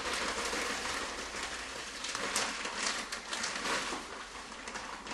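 Brown sugar rustling and crackling in its paper bag as it is scooped out and packed for measuring, with a few sharper rustles in the middle.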